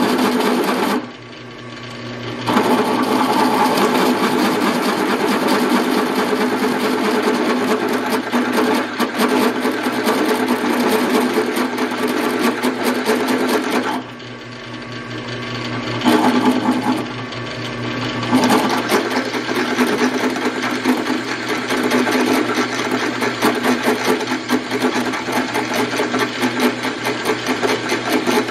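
WEN 4225 floor drill press running at about 300 RPM, its 5/8-inch high-speed steel bit cutting through 1-inch hot-rolled steel with a steady hum and a grinding chatter. The cutting noise drops away briefly twice, about a second in and around fourteen seconds, while the motor keeps running.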